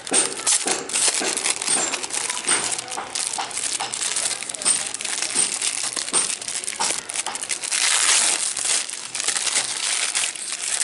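Packaging being unwrapped and handled by hand, crinkling with many small crackles. There is a denser, louder stretch of crinkling about eight seconds in.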